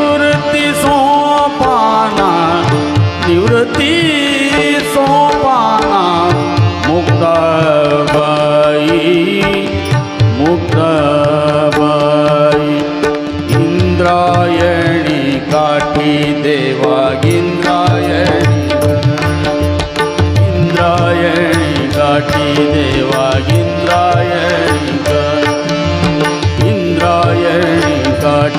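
Live Marathi abhang (Warkari devotional song): a male voice singing gliding, ornamented melody lines over held harmonium notes and a steady tabla rhythm.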